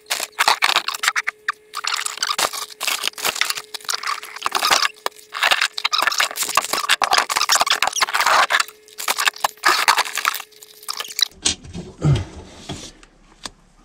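Hands rummaging through a storage container: a fast, irregular run of scraping, rattling and clattering of loose items, over a faint steady hum. It stops abruptly about 11 seconds in.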